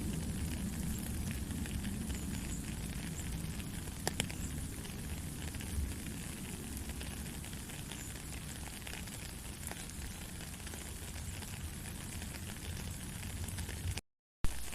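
Steady rain, an even hiss over a low rumble, with scattered sharp drop ticks. Near the end the sound cuts out completely for a fraction of a second and comes back with a sharp click.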